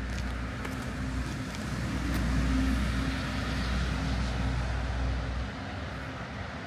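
Road traffic: a car passing with a steady low engine rumble that swells about two seconds in and eases off after about five.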